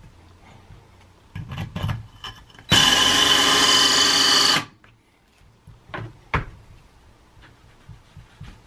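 Cordless drill running a Milwaukee 1/2-inch Diamond Plus hole saw into wet granite countertop: one steady high-speed burst of about two seconds, starting nearly three seconds in. A few knocks and clicks come before and after it.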